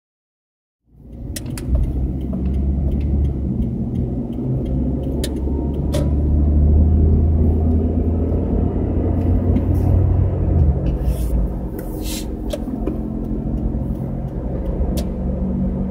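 Cabin noise in a moving car: a steady low road and engine rumble that starts suddenly about a second in, with scattered light clicks and rattles.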